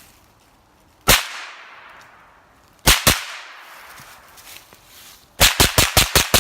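Suppressed 9mm CZ Scorpion Evo SBR firing 124 grain supersonic rounds through a home-built titanium-tube suppressor with freeze-plug baffles. One shot about a second in, then a quick pair, then from about five seconds a fast, even string of shots, roughly eight a second. Each shot is a sharp crack followed by a trailing echo.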